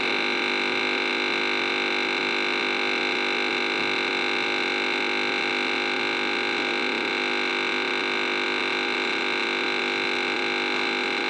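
Washing machine drain motor making a steady, unchanging buzzing hum of several held tones while draining. This is the drain noise fault, which in most cases comes from jammed wheels in the drain motor or a stuck clutch in the mechanism.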